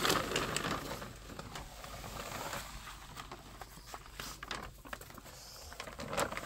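Black plastic tarp rustling and crinkling as it is pulled back with a metal garden rake, with scattered clicks and scrapes; loudest right at the start.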